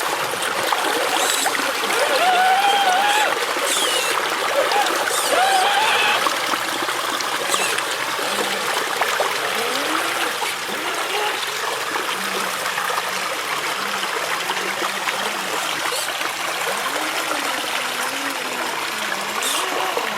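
Shallow river water trickling and rushing steadily, with a few faint brief pitched calls over it.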